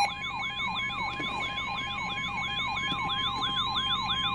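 Electronic emergency alert siren: a rising sweep repeating about three times a second over a steady high alert tone, played ahead of a severe thunderstorm warning broadcast.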